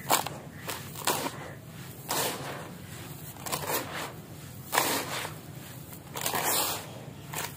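Dry black crushed-concrete grit scooped by hand and poured back into a bucket: a gritty, crunching pour hiss about once a second, each pour starting with a sharp crunch.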